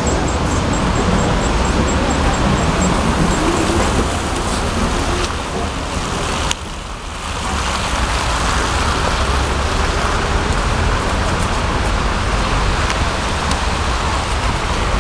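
Steady street-traffic rumble as a KTM-19 tram pulls away from the stop, with faint high ticks in the first few seconds. A sharp click comes about six and a half seconds in, the sound dips briefly, then the steady road noise goes on.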